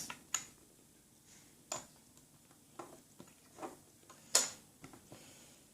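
Plastic Lego pieces clicking and tapping as they are handled and fitted: a run of scattered sharp clicks at uneven intervals, the loudest about four and a half seconds in.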